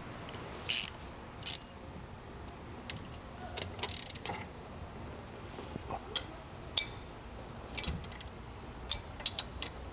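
Metal hand tools clinking and tapping against a steel A/C compressor bracket: a dozen or so separate light clicks, some in quick clusters, over a faint steady hum. They come as a compressor tensioning tool is threaded on and a wrench and ratchet are worked on it.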